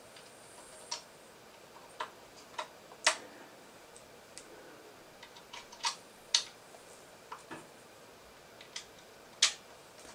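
3D-printed plastic crossbow parts and small plastic pins clicking and knocking together as they are handled and fitted by hand: about ten short clicks at uneven intervals, the loudest about three, six and nine seconds in.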